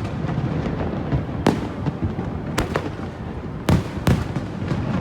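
Fireworks display: sharp shell bursts over a continuous crackle and rumble of further explosions. Four bangs stand out, the two loudest close together near the end.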